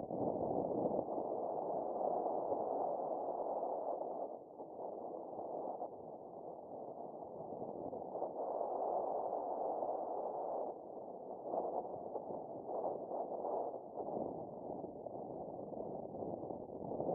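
Airflow rushing over the microphone during a paraglider flight, rising and falling in strength, with dips about four seconds in and again near eleven seconds.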